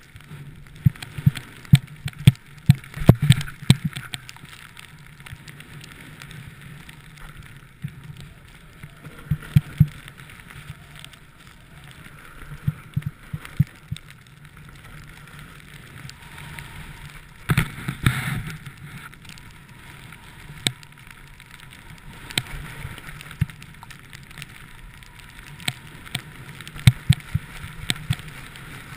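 Muffled rush of sliding down a slope through deep powder snow, with frequent sharp knocks and bumps. A louder clatter comes about eighteen seconds in.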